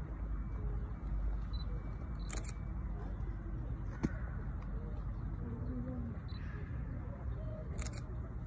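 Steady low background rumble with a few sharp clicks: a quick double click about two seconds in, a single click about four seconds in, and another double click near the end. Faint short calls or voices sound in the distance.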